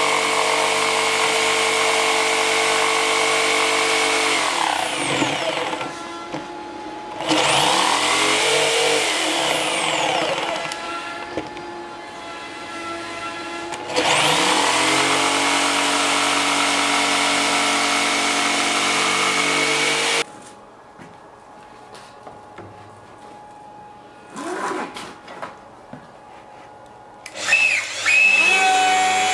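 Electric jigsaw sawing through a wooden board: the motor runs at a steady high speed, slows down twice and picks up again, then stops about two-thirds of the way through. Near the end a router starts up with a rising whine.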